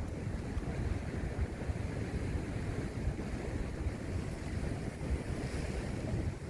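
Storm wind buffeting the microphone in steady gusts, over the rush of sea waves on the shore.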